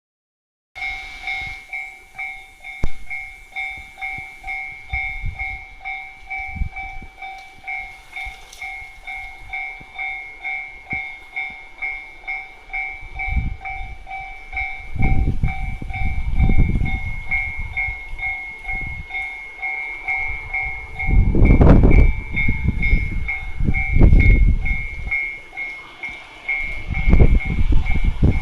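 Freight train approaching and passing through, its low rumble swelling in surges, with wind gusts from the tunnel buffeting the phone's microphone. A pulsing two-pitch warning tone repeats about twice a second throughout, and its lower pitch drops out around three-quarters of the way in.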